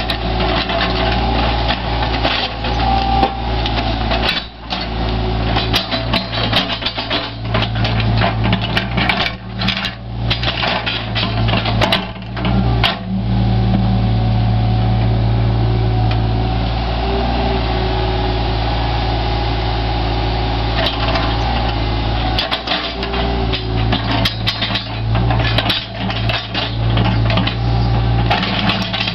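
Caterpillar 303.5 mini excavator's diesel engine running steadily, with repeated knocks and clatter of stones struck and shifted by the bucket and thumb. The clatter comes in clusters in the first half and again in the last third, with a stretch of engine alone in between.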